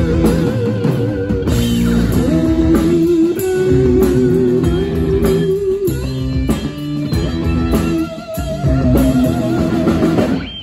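Live rock band playing an instrumental passage: electric guitars and a lap steel guitar over bass and drums, with long held lead notes that waver and slide in pitch.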